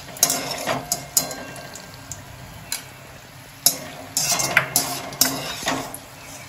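Wire-mesh spider strainer scraping and clinking against a metal kadai as fried nuts are scooped out of hot oil, in a run of irregular sharp scrapes and knocks.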